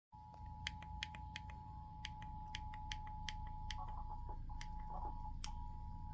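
Emergency Alert System attention signal: the steady two-tone alert, 853 and 960 Hz sounded together, heard faintly over a low hum. It wavers and breaks up briefly a little past halfway. Scattered sharp clicks sound throughout.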